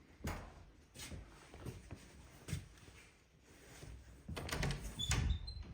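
A series of irregular knocks and thumps, with a louder cluster of them from about four and a half to five and a half seconds in.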